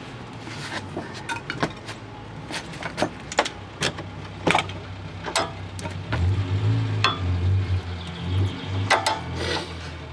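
Scattered metal clicks and knocks of hand tools being handled as a breaker bar is fitted to a socket on a suspension bolt. A low steady hum joins about six seconds in.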